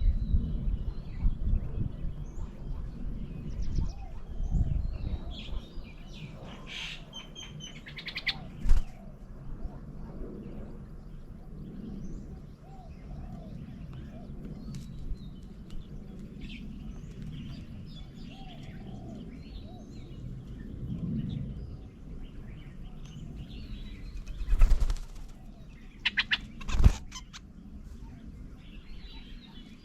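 Assorted birds chirping and calling at a feeding table, some high and short, some lower and repeated. A few sudden loud sounds stand out, one about nine seconds in and two near the end.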